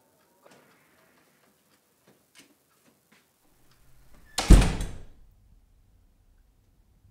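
A few faint clicks, then a single loud bang about four and a half seconds in that dies away within a second, followed by a low steady hum.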